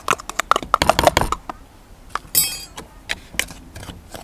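Wire whisk clicking and scraping against a plastic mixing bowl as milk is stirred into crumbly flour and lard: a quick run of clicks over the first second and a half, then scattered taps, with one brief high ringing note midway.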